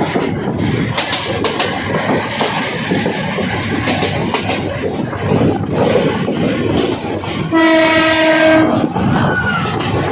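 Train running on the rails, its wheels clattering over the track with a steady rumble, and one horn blast lasting about a second, about three-quarters of the way through.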